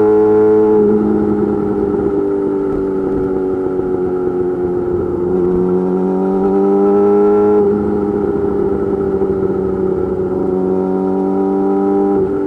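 Yamaha YZF-R6 inline-four engine running through an M4 GP slip-on exhaust with a custom mid pipe, while riding. The engine note climbs slowly and then drops back abruptly about a second in, again about seven and a half seconds in, and once more near the end.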